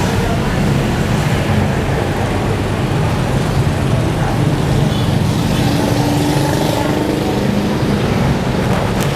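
Steady rumble of motor traffic on a busy road.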